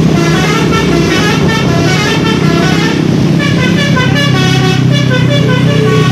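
A tour bus's multi-tone basuri 'telolet' horn playing a fast melody of short stepping notes, over a steady low engine drone.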